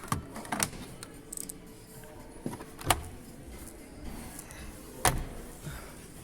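Quiet shop background with a few sharp clicks: four short knocks spread through it, the loudest about three seconds in and near five seconds.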